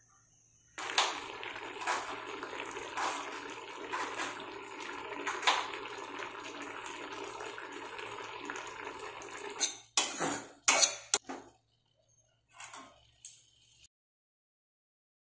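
Cubed beetroot boiling hard in water in an aluminium pan: a steady bubbling with occasional louder pops. It stops at about ten seconds, and a few sharp clinks against the pan follow.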